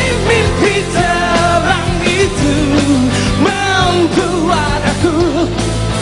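Rock band playing live: a full, loud mix with a wavering lead melody over a steady beat.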